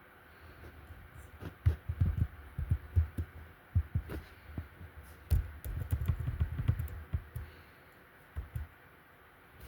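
Handling noise: irregular low thumps and bumps mixed with a few sharp clicks, busiest in the middle and quieter near the end.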